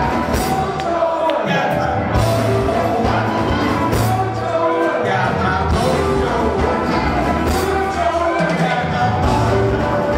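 Live blues band playing: several harmonicas over electric guitars, drums and a sousaphone, with steady drum and cymbal hits on the beat.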